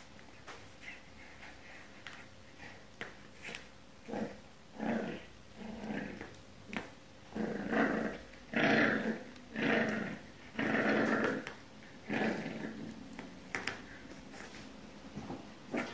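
French Bulldog puppy growling in a string of short bursts, starting about four seconds in and loudest in the middle, with a few light clicks before it.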